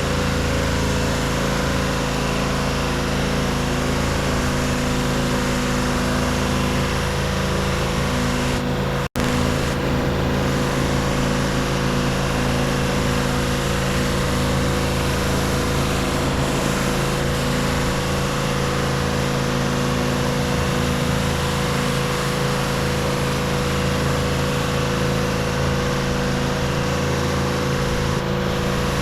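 Gas pressure washer running steadily: an engine drone under the hiss of high-pressure water spraying onto concrete. It cuts out for an instant about nine seconds in.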